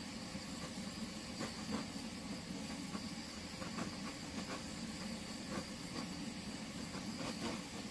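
Hand-held electric blower running steadily with an even hiss of rushing air over a motor hum, blowing wet acrylic paint across a canvas.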